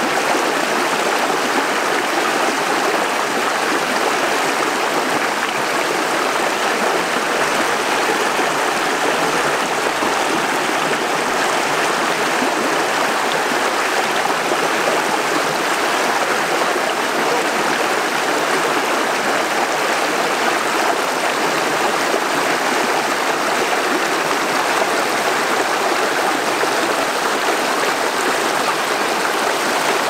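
Shallow rocky stream running steadily over stones and small cascades, a continuous even rush of water with no change throughout.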